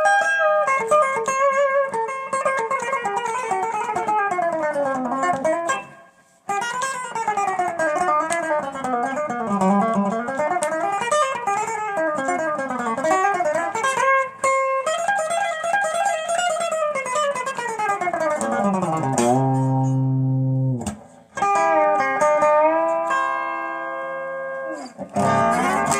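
ES-339 semi-hollow electric guitar strung with light 9-gauge Elixir strings, played with long string bends that glide notes up and down in a steel-guitar style. It stops briefly about six seconds in, bends down into a low note near the end, then rings out held chords.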